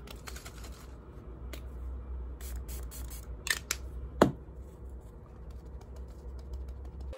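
Quick light pats of fingertips against the face, several a second, dying out about a second in. Then scattered soft clicks from handling makeup containers, with one sharp, loud click about four seconds in, over a steady low room hum.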